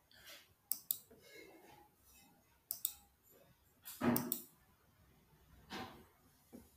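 Faint, scattered computer-mouse clicks, some in quick pairs, with two louder soft knocks about four and six seconds in.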